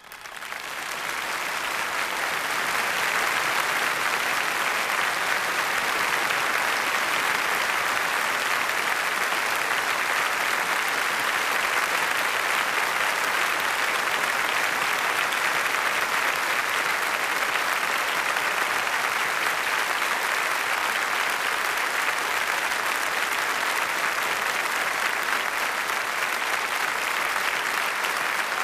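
Large audience applauding: dense clapping that swells up over the first two seconds and then holds steady.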